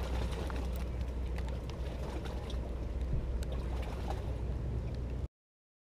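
Steady low rumble with faint scattered crackles, picked up by the onboard camera of a crashed DJI F550 hexacopter lying in dry leaves; the sound cuts off suddenly about five seconds in.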